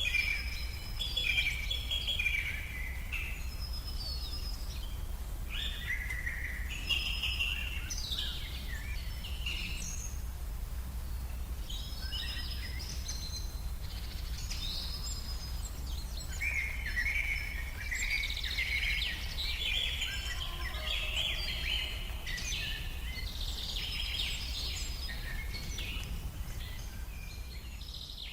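Several forest birds singing and calling, overlapping chirps and phrases, thinning out briefly about a third of the way in and growing busier in the second half. A steady low rumble runs underneath.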